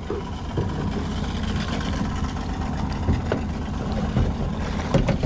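Crab pot hauled hand over hand on its wet rope alongside a small aluminium boat, water running off the rope and pot as it comes up, with a few short knocks, the sharpest about five seconds in. Underneath is a steady low rumble.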